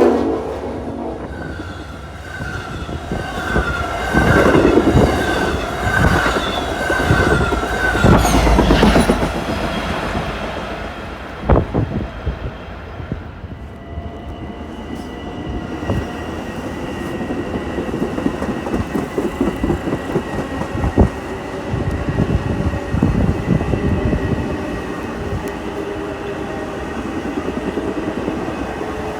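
Long Island Rail Road train passing through the station, its wheels clicking and knocking over the rail joints.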